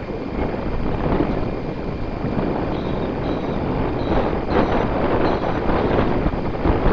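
Wind buffeting an outdoor microphone: a loud rushing noise that swells and eases in gusts.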